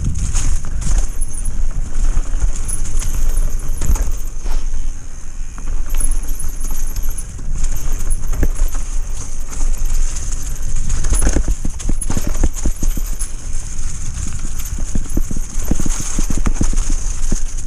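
Mountain bike ridden down a rough dirt singletrack: the bike rattles and clatters in quick, irregular knocks as the tyres run over roots, stones and leaves, over a steady rumble of wind on the camera's microphone.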